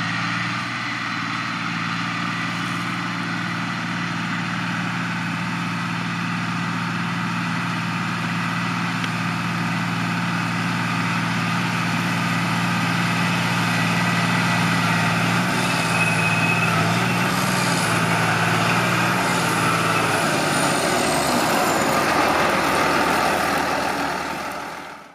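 John Deere 8100 tractor's six-cylinder diesel running steadily. Its engine tone shifts about fifteen seconds in, then gives way to a rising rushing noise before the sound fades out at the very end.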